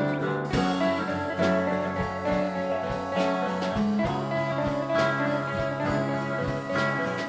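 Background instrumental music with plucked guitar and a steady beat.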